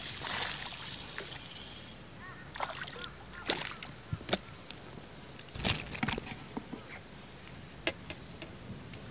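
A small hooked largemouth bass splashing at the water's surface as it is brought in. Then come water drips and scattered light clicks and taps as the fish is swung up by the line over the float tube and handled.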